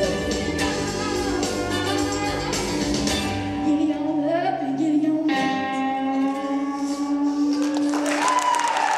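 A female vocalist sings with instrumental accompaniment, the song ending on a long held note; audience applause breaks out near the end.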